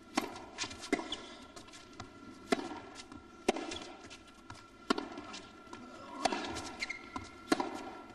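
Tennis rally: a tennis ball struck by rackets back and forth, with a sharp hit about every one and a half seconds and softer bounces of the ball between them.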